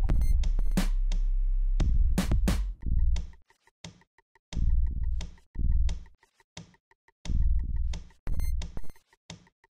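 Electronic background music with a drum-machine beat and heavy bass. It runs steadily until about three seconds in, then cuts in and out in short phrases with sharp hits between them.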